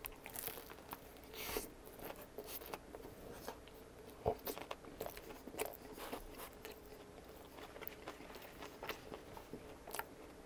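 Biting into a toasted Subway sub roll and chewing the mouthful: a cluster of crunches near the start, then irregular soft crunches and clicks of chewing.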